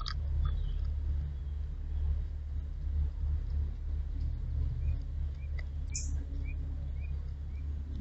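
A steady low rumble with a few sharp clicks; a little past halfway a bird gives a run of about eight short, evenly spaced chirps, roughly three a second.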